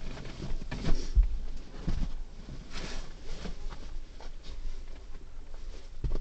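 Irregular rustling with a few soft thumps inside a car, the noise of things being handled or shifted about.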